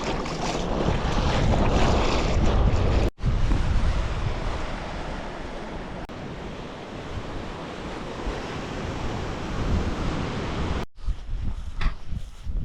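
Wind buffeting the microphone over the wash of the sea, in pieces joined by two abrupt cuts, about three seconds in and near the end.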